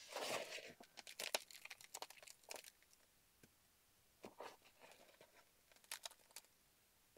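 Compost being sprinkled and crumbled by hand over a plastic seed tray as a light covering on planted corms. It makes faint, irregular rustling and crunching in short bursts, with a pause of about a second near the middle.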